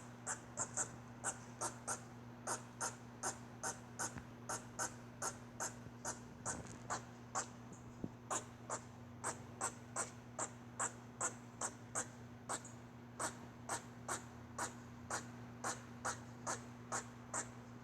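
Squirrel calling over and over, a short high call repeated about twice a second in a steady, regular rhythm.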